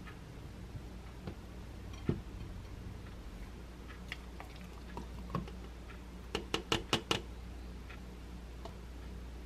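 Quiet tabletop handling while kale juice is poured from a bottle into a glass mug: a soft knock about two seconds in, then a quick run of about six sharp clicks a little past the middle, over a low steady hum.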